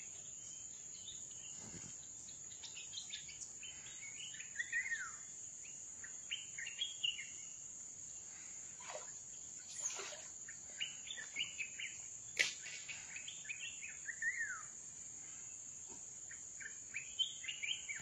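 A steady high-pitched insect drone, with a bird calling in runs of short, quick notes that slide downward. A few sharp clicks come in the middle.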